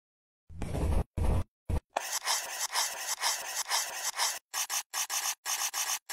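Felt-tip marker rubbing and scratching across paper in a series of separate strokes, with sharp silent gaps between them.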